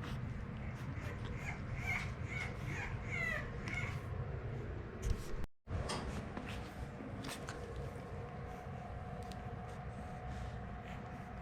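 French bulldog puppy whimpering in a string of short, wavering high squeaks, with small clicks and rustling around them. The audio drops out briefly about halfway through.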